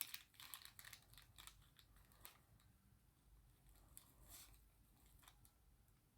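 Near silence with scattered faint clicks: small metal watch parts and tools being handled while fitting a wheel into a pocket watch movement.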